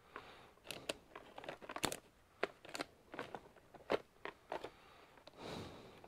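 Faint handling noises of small objects on a workbench: about a dozen irregular light clicks and crinkles, with a brief soft rustle near the end.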